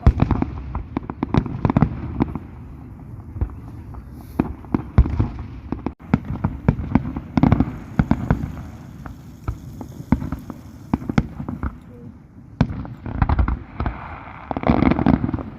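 Fireworks going off: a dense, irregular run of sharp cracks and pops with heavier bangs among them.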